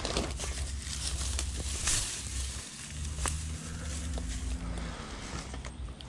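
Weeds being yanked by hand out of a crushed red rock bed: leaves and stems rustling, roots tearing loose and gravel crunching and crackling, with a low rumble underneath.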